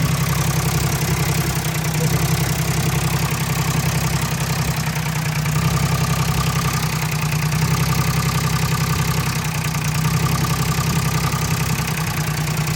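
2006 Hyundai Sonata's 3.3-litre V6 idling steadily with an even, rapid pulse. The customer reports this engine as making a noise.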